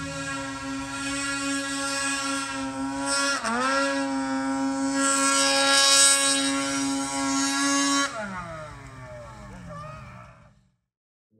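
Snowmobile engine held at high revs as the sled works through deep powder, with a brief dip and recovery in pitch about three seconds in. A little after eight seconds the revs fall away and the sound fades out.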